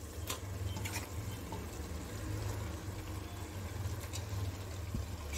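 Raw chicken pieces dropped by hand into a pressure cooker of hot fried masala, with a soft sizzle and a few light knocks as the pieces land and the steel bowl touches the cooker. A low steady hum runs underneath.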